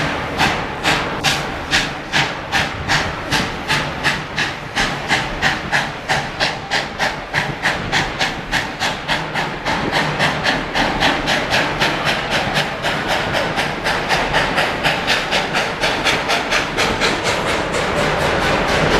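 Steam locomotive chuffing as it pulls a train, the exhaust beats quickening from about two and a half a second to about four a second as it gathers speed.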